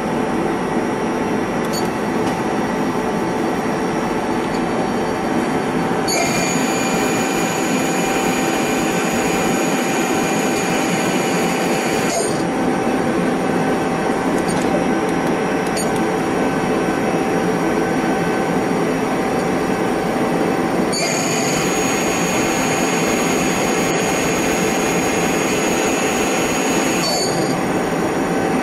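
Mazak Multiplex 4200 CNC lathe running with a steady mechanical hum, with a high whine coming in twice for about six seconds each time, starting and stopping with a slight bend in pitch.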